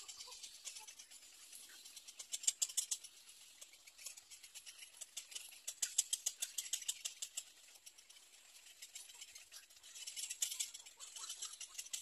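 Little egret nestlings giving rapid clicking begging calls, high-pitched, about ten clicks a second, in three bursts.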